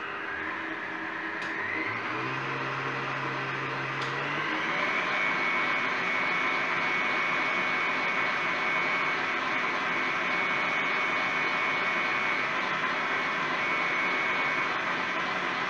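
Stand mixer beating egg whites with sugar: a steady motor whine that steps up in pitch twice as the speed is raised, about two seconds in and again around four to five seconds in.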